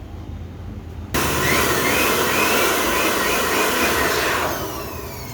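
Rebuilt Ashok Leyland Dost turbocharger being spun up in a test: a loud rush of air starts suddenly about a second in and holds steady for a few seconds. When the air stops, a whine falls in pitch as the wheel spins down.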